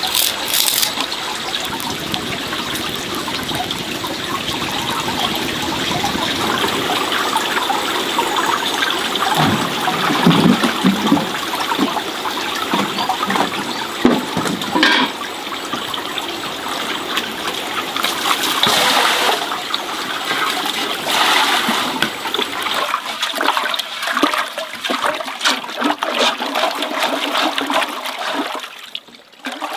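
Water running and splashing steadily, with a few knocks and clicks, dropping away briefly near the end.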